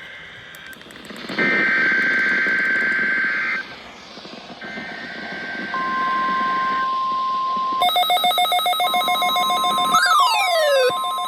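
NOAA Weather Radio test alert on weather radio receivers: two bursts of the SAME digital header, a harsh buzzing data screech, then the steady 1050 Hz warning alarm tone. From about eight seconds in, a receiver's electronic alarm beeps several times a second, with falling chirps near the end.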